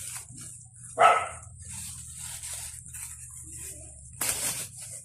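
A dog barks once, about a second in, over a steady hiss and low hum. A short rushing burst of noise comes near the end.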